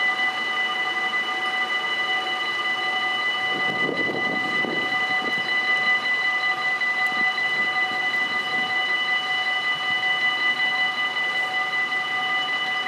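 Dutch level crossing (AHOB) warning bells ringing steadily, several bells at once, signalling an approaching train.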